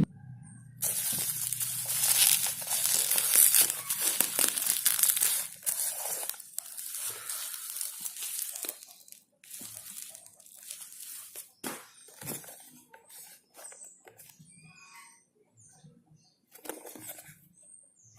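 Parcel packaging being torn open and crinkled by hand. A dense stretch of tearing and crackling starts about a second in and lasts some eight seconds, then thins to scattered rustles and clicks of handling.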